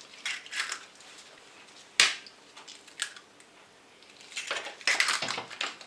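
Raw eggs being cracked open over a plastic bowl: one sharp crack about two seconds in, a few lighter taps, and a busier run of crackling shell near the end.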